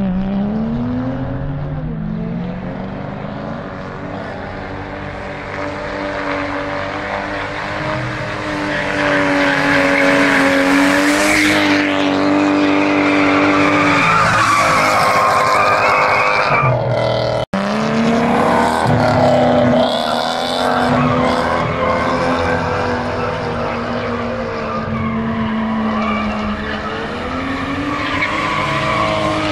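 Toyota Mark II drift car held at high revs while its tyres squeal and skid through a drift, the engine note wavering up and down with the throttle. There is an abrupt cut about 17 seconds in, after which the engine and tyre noise carry on.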